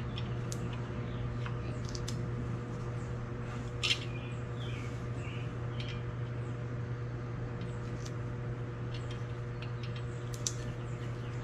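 Steady low hum with scattered light clicks and taps of work on a strut by hand, one sharper click about four seconds in, followed by a few faint bird-like chirps.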